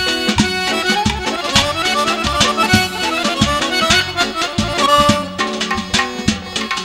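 Azerbaijani qarmon (small accordion) playing a lively folk melody, accompanied by regular drum beats.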